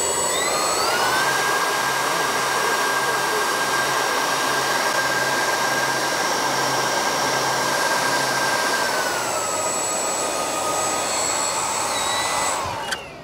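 Electric motors spinning the two 3D-printed centrifugal lift fans of a skirtless RC hovercraft: a steady whine with a rush of air. The pitch rises as the throttle comes up about half a second in, holds, eases down about nine seconds in, and the fans spool down and stop near the end with a single knock.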